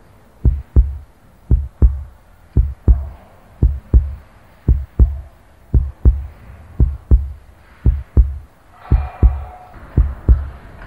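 Heartbeat sound effect: slow, regular double thumps (lub-dub), about one pair a second.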